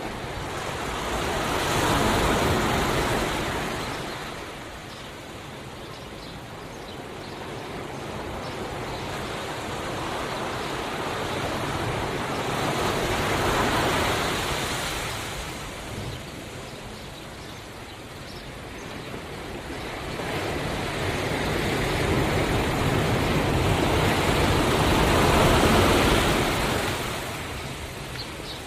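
Ocean waves washing in on the shore, swelling and receding in slow surges, three in all, about twelve seconds apart.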